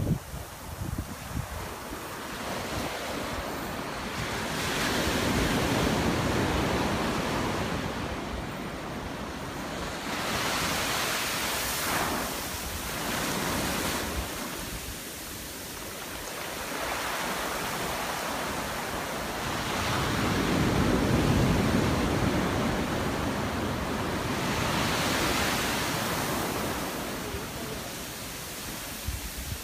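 Surf washing up a sandy beach, a steady hiss that swells and fades as each wave runs in and draws back.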